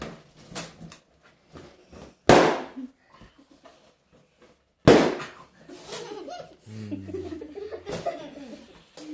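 Two latex party balloons popped by a child with a pointed tool: two sharp bangs about two and a half seconds apart, with a few light taps before them.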